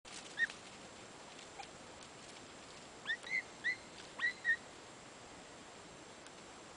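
A scent hound giving tongue in the distance on a hare's trail: short, high yelps, one near the start, then five in quick succession about three seconds in.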